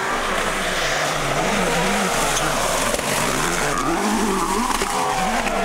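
Peugeot 307 WRC rally car's turbocharged two-litre four-cylinder engine, driven hard, its note repeatedly rising and falling, over a steady hiss of tyres on gravel.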